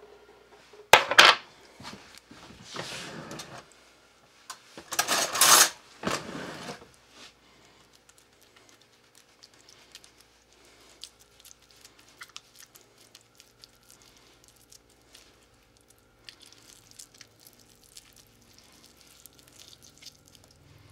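Hands handling kitchen things while putting toppings on a pizza: a short loud burst of noise about a second in and a longer, louder cluster from about four to seven seconds in, then faint scattered taps and clicks.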